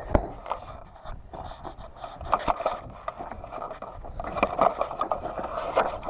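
A Dodge Durango's rear liftgate shuts with one sharp thump, followed by scattered clicks, knocks and scraping as the gate is handled to check that the repaired latch holds.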